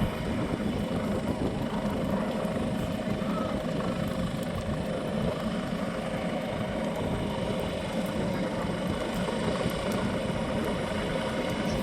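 Coastguard search-and-rescue helicopter hovering low for a winch lift, its rotor and engine noise a steady, unbroken drone.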